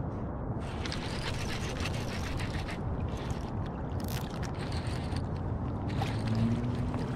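Steady low rumble of wind on the microphone over water lapping around a float tube, with scattered light crackles.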